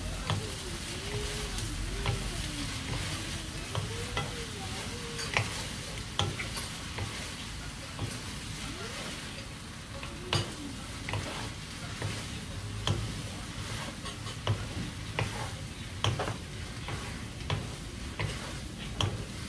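Strips of Korean fishcake (eomuk) stir-frying in a soy and syrup sauce, sizzling steadily while two wooden spatulas stir and toss them. Irregular knocks of the wood against the frying pan come every second or so.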